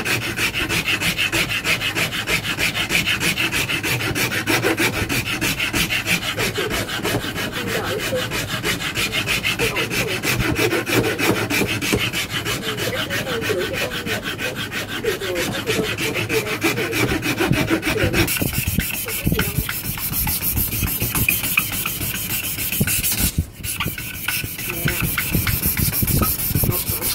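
Hand file rasping back and forth over a wooden racket handle in quick, steady strokes. About two-thirds of the way through it changes to a hissier scrape as a strip of abrasive cloth is pulled back and forth around the handle, with a brief pause a few seconds later.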